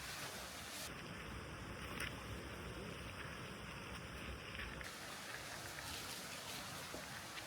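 Steady rushing outdoor noise with a couple of faint clicks.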